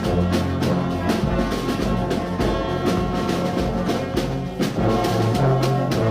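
Brass band playing: held brass chords over a low bass line, with regular drum beats.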